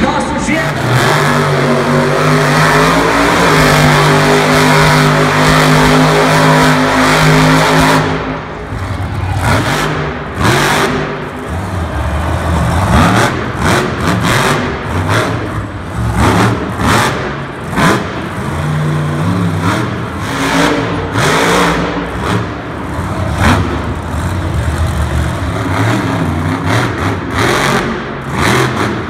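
Monster trucks' supercharged V8 engines, loud: held at steady high revs for the first several seconds, then revving up and down again and again, with sharp cracks in among it, as the trucks are driven up onto two wheels.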